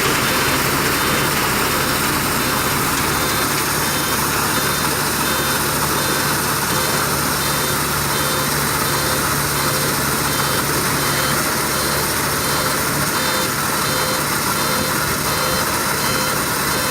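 Heavy diesel engines of road-paving machinery running steadily, with a constant low hum.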